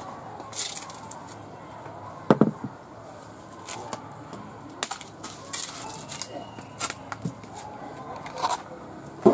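A large knife scraping the rind off a sugarcane stalk in short, irregular strokes, giving sharp scrapes and clicks, with one heavier knock about two seconds in.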